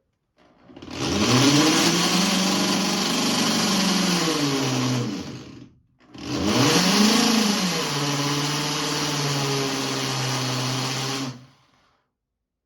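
Small electric motor run twice for about five seconds each, with a brief stop between: each run starts with a rising whine as it spins up, then holds a steady hum and hiss until it cuts off.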